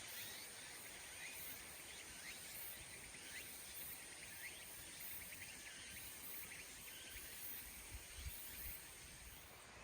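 Faint outdoor ambience: a steady, high-pitched pulsing insect drone with many short, quick chirps over it, and a few soft low bumps about eight seconds in.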